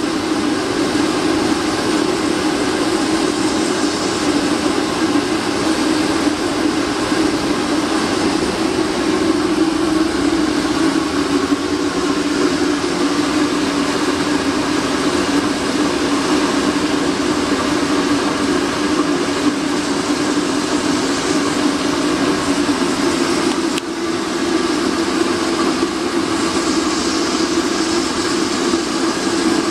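Homemade waste vegetable oil burner running: a steady roar of burning oil and forced air with a strong, even hum underneath.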